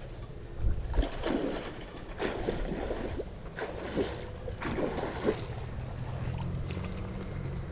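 Wind buffeting the microphone, with water splashing in several short bursts.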